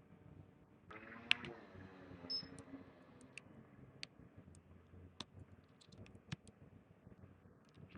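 Faint, scattered sharp clicks and taps of small tools handling a phone on a repair bench. About a second in, a brief low hum with a short high tone over it.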